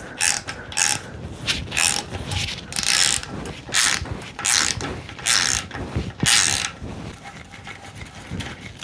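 Short ratchet clicking in repeated strokes as it turns a seal press, driving a new camshaft seal into a Mazda Miata engine. The strokes come about once or twice a second and die away near the end.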